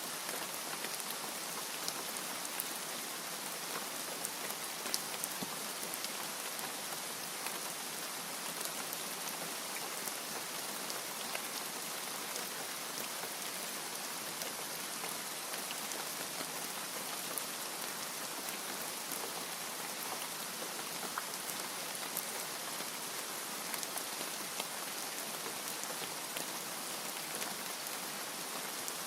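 Steady rain falling, a dense even hiss with the patter of individual drops ticking through it.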